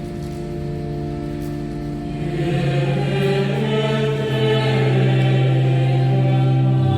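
Choir singing a Requiem in long held chords, swelling louder about two and a half seconds in.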